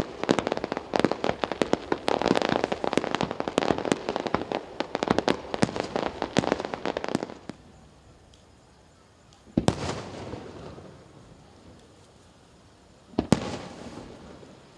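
Aerial fireworks: a rapid barrage of bangs and crackles for about seven seconds, then two single shell bursts about nine and a half and thirteen seconds in, each trailing off.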